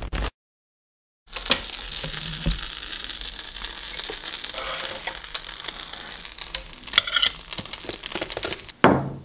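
A toasted sandwich sizzling on the hot plates of an electric contact grill, with light scrapes and clicks of a utensil as it is lifted off. Intro music cuts off at the start, and a few sharp knocks come near the end.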